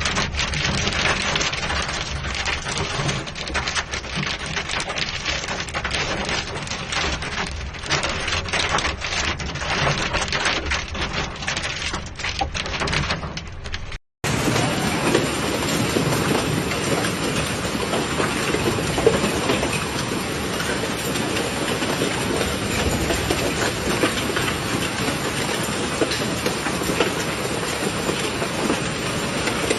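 Hailstorm: a dense, irregular clatter of hailstones striking hard surfaces, then, after a cut about halfway through, a steady noise of heavy hail and rain pouring down.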